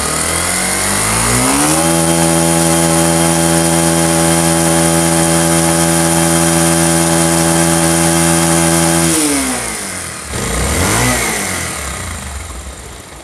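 Bajaj Pulsar single-cylinder motorcycle engine revved up over about two seconds, held at steady high revs for about seven seconds, then dropped back, blipped once more briefly and settled toward idle. With the timing chain adjuster refitted it runs without the loose-timing-chain rattle, though the owner says a faint whirr from the magneto-side bearings remains.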